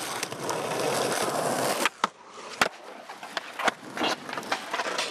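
Skateboard wheels rolling over rough asphalt for about two seconds, then a sudden drop to quieter rolling broken by several sharp clacks of the board.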